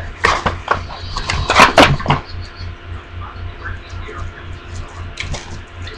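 Product packaging being opened and handled by hand: a quick cluster of rustles and clicks, loudest just before two seconds in, then another brief rustle near the end.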